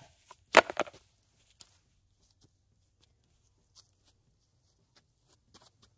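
A short, loud rustle of plastic golf discs handled right against the microphone about half a second in, followed by faint, scattered footsteps and ticks as the player walks onto the turf tee pad.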